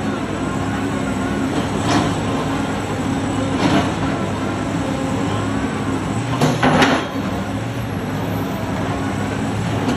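Heavy construction machinery running with a steady low drone, broken by short harsh bursts of noise about two seconds in, near four seconds, and a longer double burst near seven seconds.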